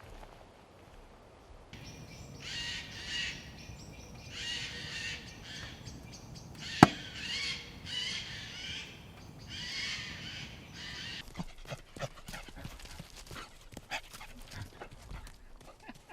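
Dog gnawing and crunching on a bone, a rapid run of small cracks and clicks in the later part, with one sharp loud crack about seven seconds in. Earlier come four harsh, drawn-out calls, each about a second long, from an animal whose kind is unclear.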